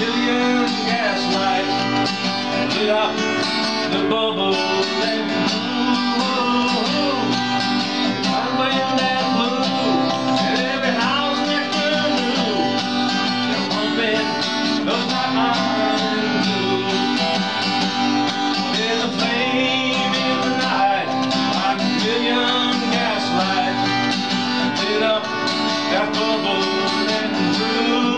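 A man singing a blues song while playing an acoustic guitar, the singing and guitar going on without a break.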